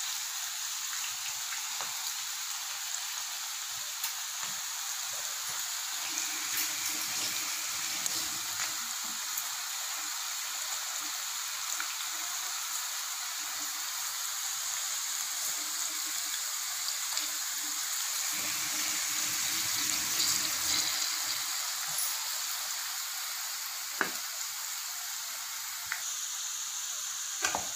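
Batter-coated okra strips deep-frying in hot oil over a high flame: a steady bubbling sizzle, with an occasional sharp tick.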